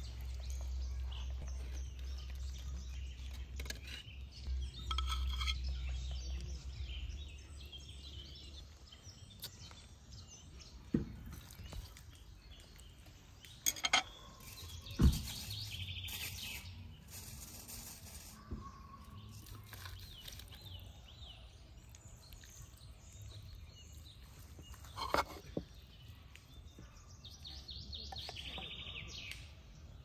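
Outdoor ambience with birds chirping now and then, a low rumble for the first several seconds, and a few sharp clicks and knocks, the loudest about halfway through.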